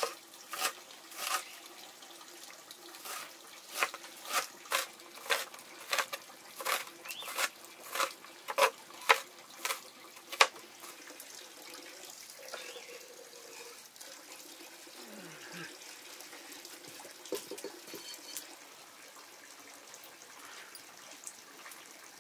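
Water splashing in a run of about twenty quick, sharp strokes over the first ten seconds or so, then quieter trickling and small clatters.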